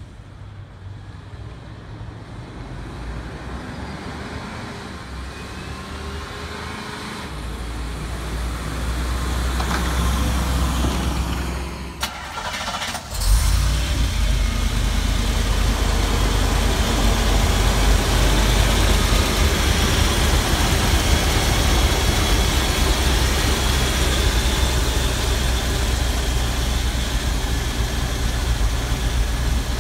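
1991 GMC TopKick truck's 6.0-litre gasoline V8 driving up, its engine growing steadily louder over about ten seconds. After a break about 13 seconds in, the same engine is heard close up at the open engine bay, running at a steady idle.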